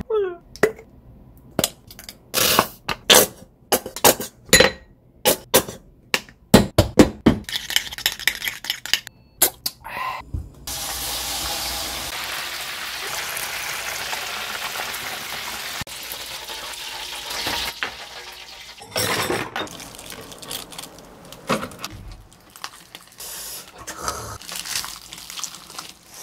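Quick kitchen knocks and clicks, then for about seven seconds a steady sizzling hiss of a battered whole chicken deep-frying in oil, then scattered knocks and crackles again.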